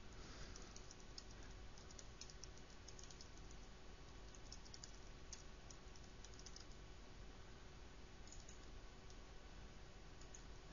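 Faint typing on a computer keyboard: runs of key clicks, dense at first, then sparse, with another short run near the end.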